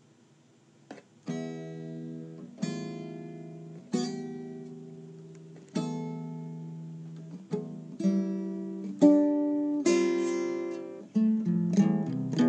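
Acoustic guitar strummed one chord at a time, each chord left to ring and fade, about every one and a half seconds. The strums come quicker in the last few seconds.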